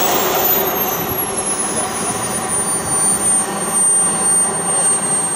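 Radio-controlled model jet's turbine: a thin high whine that falls in pitch over the first couple of seconds and then holds steady, over a loud rushing noise.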